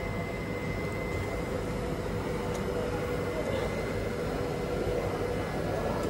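Steady drone of a moving passenger cabin: a low, even rumble with a faint constant hum on top.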